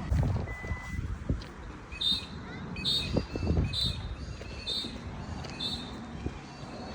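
A bird calling five times in an even series, about one call a second, over wind rumbling on the microphone.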